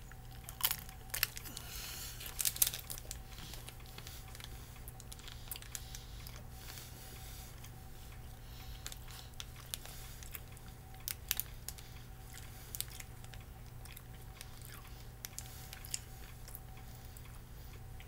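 A person biting into and chewing a crunchy El Lobo almond-and-honey wafer bar. Sharp crunches are loudest in the first three seconds, then scattered quieter crunches follow as the chewing goes on.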